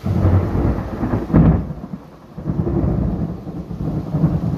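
Loud thunder after a lightning flash, breaking in suddenly and rolling in low rumbles that peak about a second and a half in, ease briefly, then rumble on, over falling rain.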